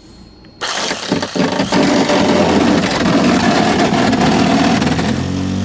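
Ryobi reciprocating saw starting about half a second in and cutting down through a car's inside door panel, running loud and steady.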